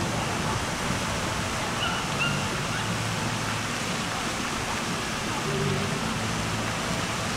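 Outdoor crowd ambience: people's voices murmuring over a steady rushing noise, with a couple of brief high chirps about two seconds in.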